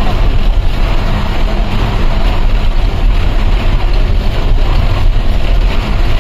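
Engine and road noise of a moving Hanif Enterprise long-distance coach, heard from inside the cabin as a loud, steady rumble.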